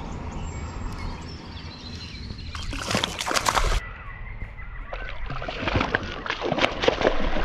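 A small hooked largemouth bass thrashing and splashing at the water's surface as it is reeled in. There are two bursts of splashing, one about three seconds in and a longer one from about five to seven seconds in.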